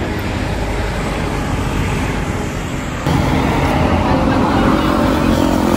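Roadside traffic noise: a steady rumble of passing vehicles, louder from about three seconds in.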